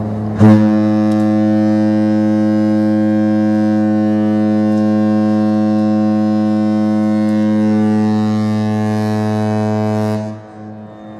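The horn of the cruise ship Mein Schiff 3 sounding one long, loud, steady low blast that stops about ten seconds in.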